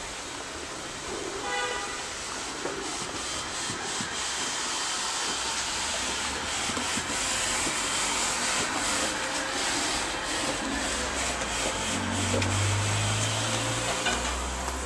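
Street traffic noise: a vehicle passing in the street, its rushing noise swelling slowly and falling away near the end, with a low engine hum about twelve seconds in.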